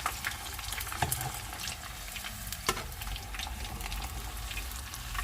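Hot oil sizzling and crackling as pork pieces deep-fry, with two sharp taps about a second in and midway through.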